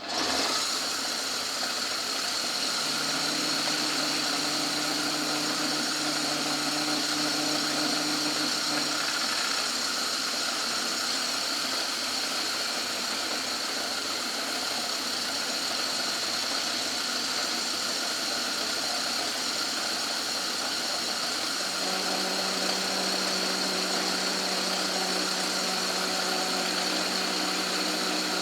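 Old Myford lathe switched on and running steadily with a high whine while a light cut is taken on a bush; a low hum comes in twice over the running sound, partway through and again near the end.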